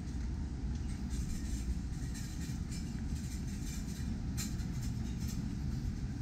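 Steady low rumble of city ambience on a walking camera's microphone, with a light hiss above it and a few faint clicks about four and five seconds in.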